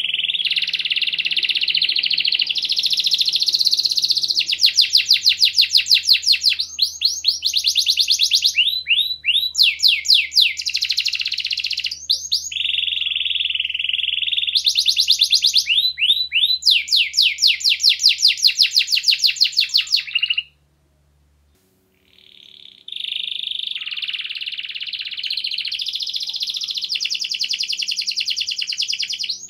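Domestic canary singing a long, fast song of rolling trills and rapid runs of repeated notes. The song breaks off for about two seconds of near silence about two-thirds of the way through, then resumes.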